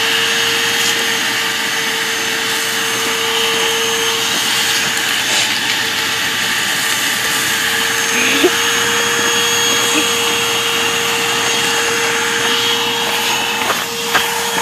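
Dirt Devil vacuum cleaner running steadily while sucking up snow, its motor giving a constant whine over the rush of air.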